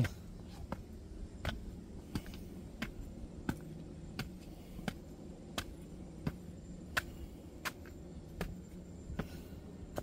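Footsteps climbing outdoor stairs at a steady pace, a sharp step about every three-quarters of a second.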